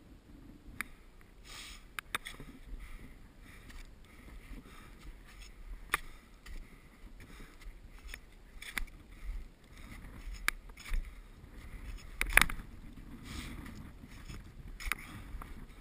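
A climber's boots and gloved hands working into a steep snow slope: irregular crunches and knocks with short rustling swishes between, the sharpest knock about twelve seconds in.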